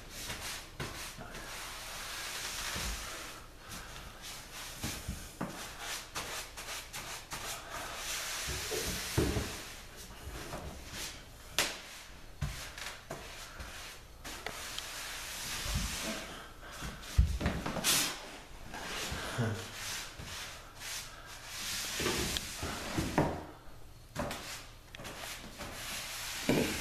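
Hand applicator pad rubbing water-based seal coat across a sanded wood floor in strokes that swell and fade, with scattered clicks and knocks.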